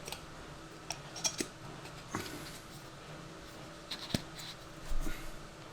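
Light scattered clicks and taps of small objects being handled and set down during a neoprene-cement glove repair, over a faint steady hum.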